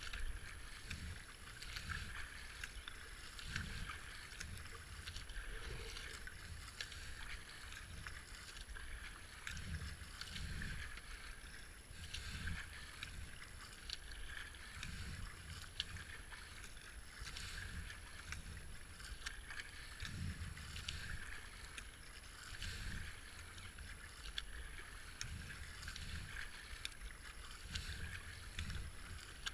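Kayak paddle strokes in the water, a low splash about once a second as the blades dip on alternate sides, over the steady wash of water along the racing kayak's hull.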